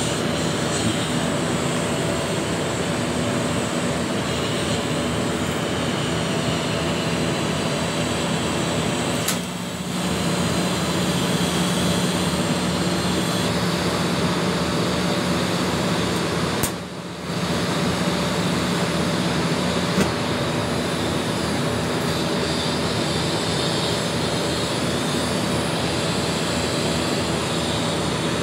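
TIG welding arc and welding machine running on a vertical 3G plate joint: a steady hiss with a low hum underneath. It dips briefly twice, about ten and seventeen seconds in.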